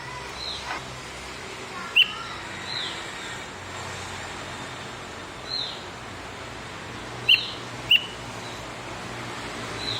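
Javan grey-throated white-eye (opior jawa) giving short, sharp chirps that drop in pitch, about seven in all. The loudest come about two seconds in and as a quick pair near the end, over a steady background hiss.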